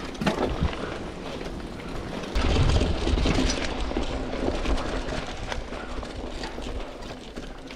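Mountain bike rolling downhill over a rough gravel and grass trail: tyres crunching and the chain and frame rattling with many small knocks over the bumps, with wind rumbling on the microphone, loudest for about a second around two and a half seconds in.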